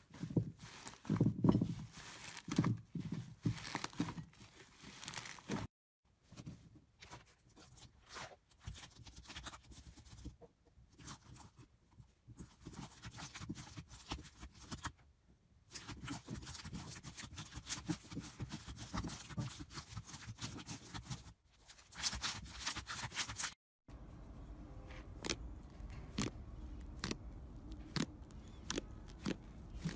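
Hands squeezing, stretching and poking slime: a run of sticky squelches, crackles and small pops, in several short takes separated by brief dead silences. Near the end comes a string of quick pops as fingers press into a thick fluffy slime.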